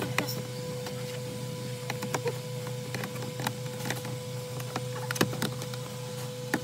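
Scattered light clicks and knocks of hand work on a car dashboard's parts, about one a second, over a steady background hum with a constant tone.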